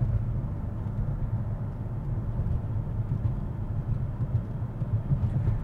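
Steady low rumble of road and wind noise from a 2016 BMW X5 M towing a travel trailer at highway speed, picked up by a camera mounted on the outside of the SUV.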